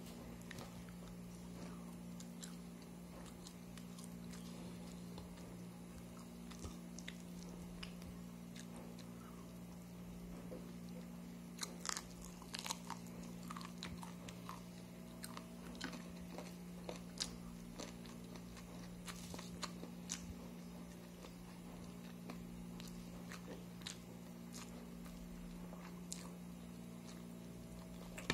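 Someone chewing, with faint scattered crunches and clicks that come mostly in the middle, over a steady low hum.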